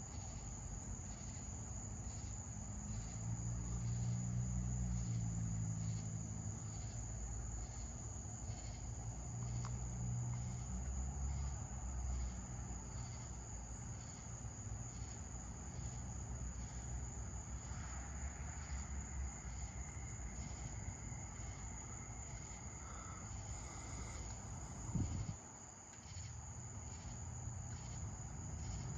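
Crickets chirping in a steady high trill. Beneath them, a low rumble of distant thunder swells about three seconds in and fades over the next several seconds. A short thump comes near the end.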